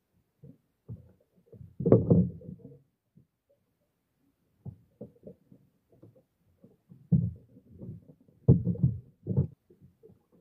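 Muffled, irregular thumps and knocks as a freshly caught mahi-mahi is clubbed and handled at the side of a small boat, heard through a covered phone microphone. The heaviest blows come about two seconds in, with another cluster near the end.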